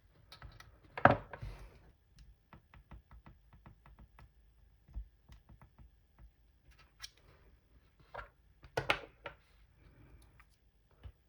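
Small plastic clicks and taps from work on a MacBook 12-inch butterfly keyboard: a string of light clicks at about three a second, with louder bursts of clatter and scraping about a second in and near the end.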